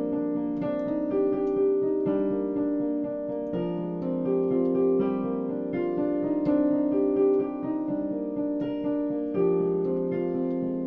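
Solo piano music: a steady stream of notes and chords, each ringing on under the next.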